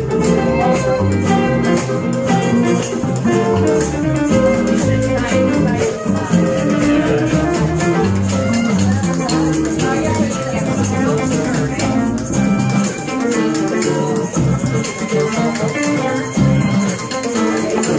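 Live acoustic band music: acoustic guitars strummed and plucked, with maracas shaking out a steady rhythm.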